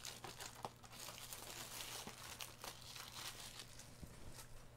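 Plastic shrink wrap crinkling and tearing as it is opened and peeled off a trading card booster box: a run of faint crackles that thins out near the end.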